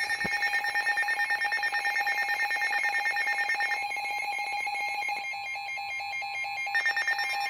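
Weather alert radio sounding its alert alarm: a rapid, evenly pulsing electronic beep on a steady pitch that cuts off the broadcast voice.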